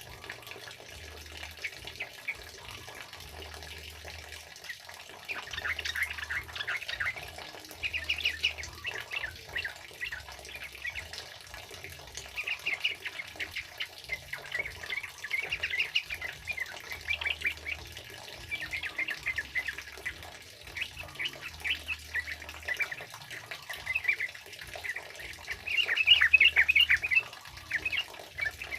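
Yellow-vented bulbuls (trucukan) singing in repeated bursts of quick, bubbly chirping phrases over the steady hiss of heavy rain. The song is sparse for the first few seconds and loudest near the end.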